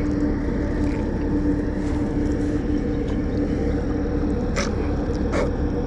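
Steady low rumble with a constant engine-like hum, and two short clicks near the end.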